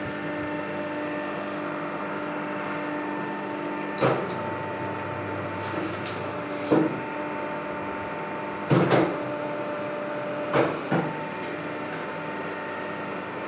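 Hydraulic paper plate press running: a steady hum from its pump motor, broken by a few sharp clunks as the metal dies close and release and sheets are handled, two of them close together about nine seconds in.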